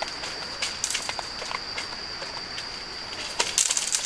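Dogs eating dry kibble from bowls: irregular crunches and clicks, with a quick, louder flurry of them near the end. A steady high insect trill runs underneath.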